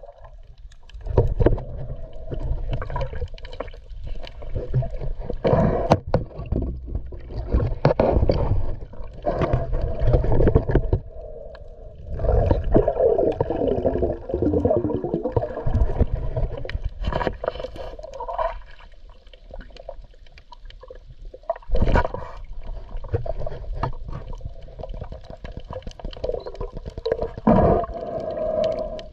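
Sea water sloshing and gurgling around a camera held at the surface and just below it, with uneven muffled thumps and knocks, the sharpest about 22 seconds in.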